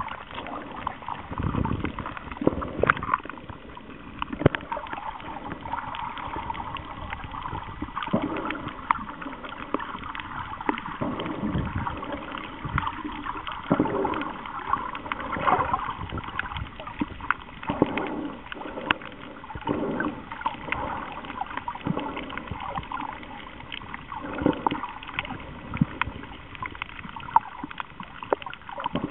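Underwater water noise around the camera: gurgling and sloshing, with many irregular clicks and low knocks.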